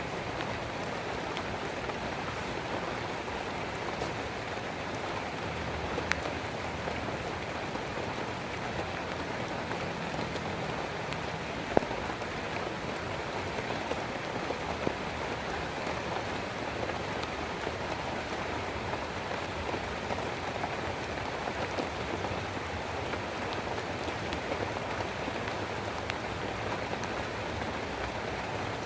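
Steady rain falling, an even patter with no let-up, broken by two sharp knocks: a light one about six seconds in and a louder one about twelve seconds in.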